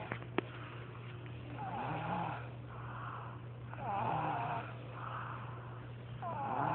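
A person snoring: three loud snoring breaths a little over two seconds apart, each sliding down in pitch, with fainter breaths between them. A steady low hum runs underneath.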